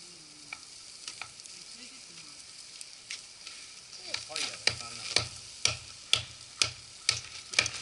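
Food sizzling in a frying pan. From about halfway a utensil knocks and scrapes against the pan about twice a second as the food is stirred.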